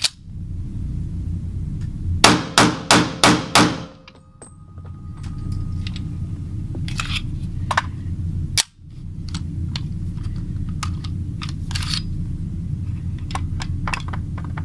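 Five rapid pistol shots from an EAA Witness fitted with a compact .40 caliber conversion kit, about a third of a second apart, about two seconds in. Scattered sharp metallic clicks follow, over a steady low rumble.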